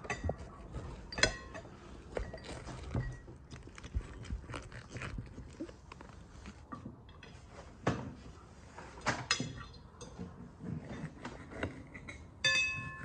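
Serrated knife carving a whole roast goose on a china plate: scattered small crackles, scrapes and taps as the blade works through the skin and meat, with a ringing clink of cutlery on a china bowl near the end.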